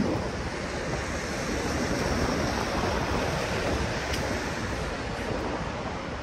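Steady rushing outdoor city ambience with no single sound standing out.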